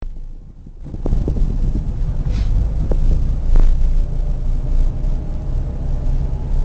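Steady low rumble of a car's engine and tyres on a wet road, heard inside the cabin, with a few light scattered taps.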